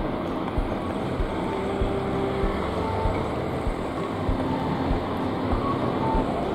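Street traffic noise as a steady wash, with regular low thumps of footsteps from someone walking with the camera.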